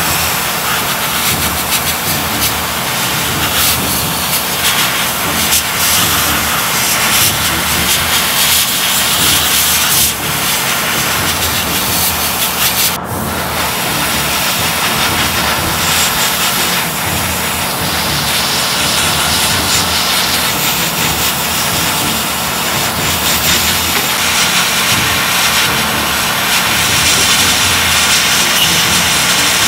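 Airbrush spraying lacquer paint onto a plastic model, a steady loud hiss of air, with a spray-booth extractor fan running behind it. The hiss breaks off for an instant about 13 seconds in, then carries on.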